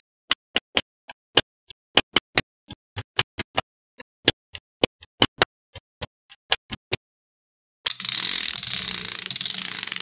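Small neodymium magnetic balls snapping onto a magnetic-ball wall in sharp metallic clicks, about three or four a second at an uneven pace, then, after a short pause near the end, a dense continuous rattling noise.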